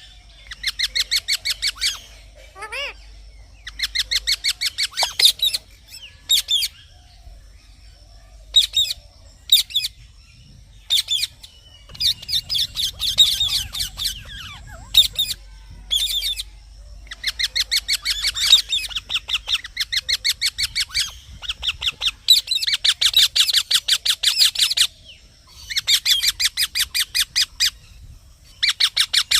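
Green parrot calling in repeated bouts of rapid, harsh chattering notes, each bout lasting one to three seconds, with short pauses between.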